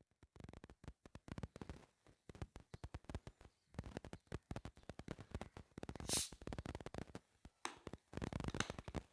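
Close-miked eating of mutton curry and rice: rapid wet chewing and mouth smacks. A short, loud hissing burst comes about six seconds in.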